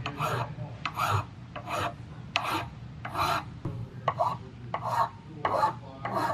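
Hand file cutting a piece of rifle hardware clamped in a bench vise: about ten separate strokes, irregularly spaced at a little under two a second.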